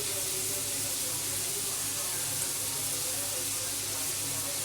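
Chicken frying in oil in a pan, a steady sizzle.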